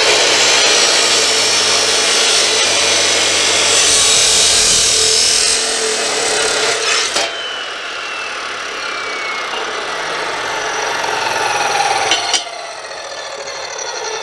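Hercules 14-inch, 15-amp abrasive cut-off saw grinding through square steel tubing: a loud, harsh grinding for about seven seconds that cuts off abruptly. Then the motor and wheel wind down with a slowly falling whine, and there is a sharp knock near the end.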